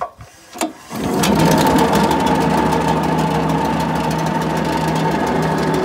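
The engine of an Errut Ranger asphalt/concrete saw is pull-started on its recoil starter and catches about a second in, then runs steadily and fast.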